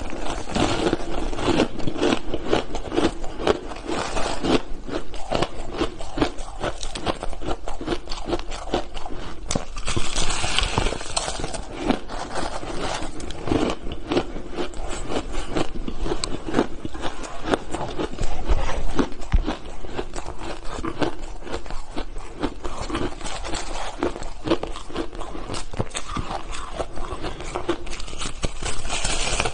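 Crunching and chewing of hard shaved ice, a dense, unbroken run of crisp crackles as lumps of packed ice are bitten and chewed.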